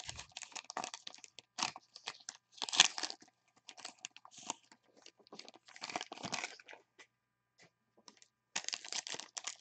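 Wrapper of a 2020 Panini Legacy football card pack crinkling and tearing as it is opened by hand, in short irregular bursts with a pause about seven seconds in.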